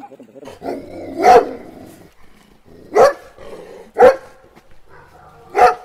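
Four loud, sharp barks spaced one to two seconds apart, with low background noise between them.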